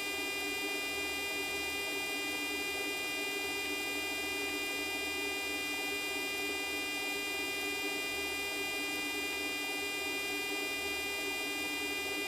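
Steady hum of the refuelling tanker aircraft's cabin, with several unchanging whining tones over an even background noise.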